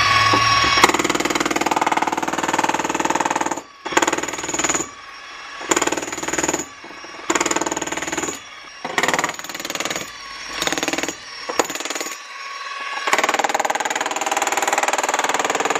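Makita corded electric demolition hammer with a point chisel hammering into a concrete countertop. It runs unbroken for about three and a half seconds, then in a string of short bursts with pauses, then unbroken again for the last few seconds.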